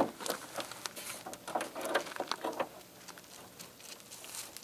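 A car's rear wing being handled and set down onto the trunk lid: a sharp knock at the start, then scattered light clicks, taps and rustling as it is shifted into position. It goes quieter after about three seconds.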